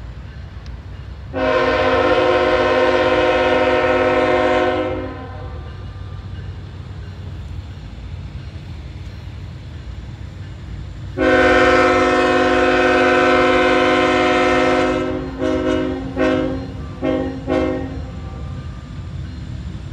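CSX freight locomotive's multi-chime air horn: two long blasts several seconds apart, then a quick string of short toots. Under the horn, the locomotives' diesel engines rumble.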